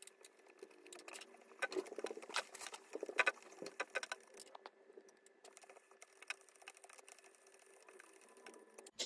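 Fast, irregular clicking and rattling of a wrench turning the new lead screw of a Proxxon MF70 mini mill, winding the milling head up its column; busiest in the first half, sparser later.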